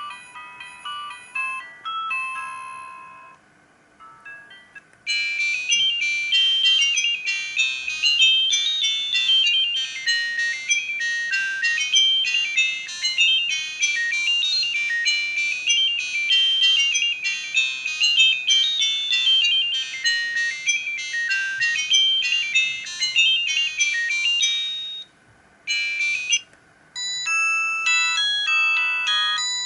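Siemens CL50 mobile phone playing its built-in ringtones one after another. One melody ends about three seconds in. A fast tune of quick electronic notes runs from about five seconds to about twenty-five, then comes a brief snippet, and the next ringtone starts near the end.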